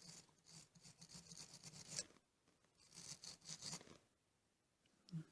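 Small wire brush scrubbing a dirty metal part of a car door lock, quick scratchy strokes in two spells, the second starting about three seconds in.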